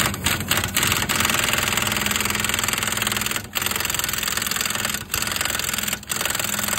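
Pneumatic impact wrench running on a car wheel's lug nuts, fitting a newly mounted wheel. It goes in runs of one to three seconds with short breaks between nuts, about four runs in all.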